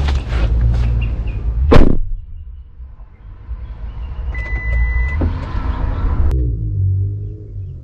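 Car engine and road rumble heard from inside the car, with one loud, sharp slam about two seconds in, like a car door shutting. Later a rushing hiss with a brief high beep builds and then cuts off suddenly, leaving the low rumble.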